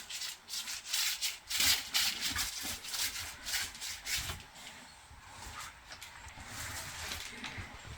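Plastering trowel scraping and rubbing over fresh textured decorative plaster on a fireplace, in irregular strokes that are louder and busier in the first half.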